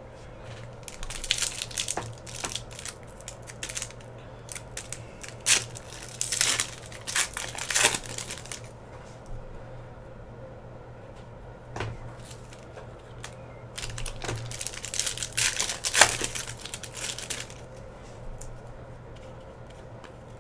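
Shiny foil wrapper of an Upper Deck Artifacts hockey hobby pack crinkling and tearing in several short bursts as the pack is opened and handled, the loudest snap about 16 seconds in.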